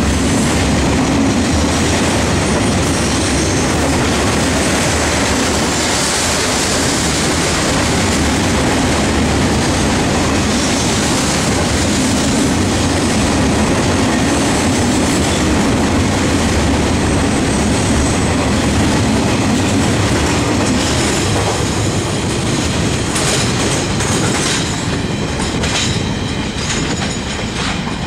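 Container wagons of a freight train rolling past at speed: a loud, steady noise of steel wheels on rail. It eases off over the last few seconds as the end of the train goes by, with a few last wheel clicks.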